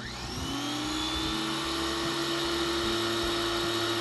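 Pressure washer starting up and spraying through its watering tip. The motor and pump rise in pitch over the first second and then run steadily under a hiss of water.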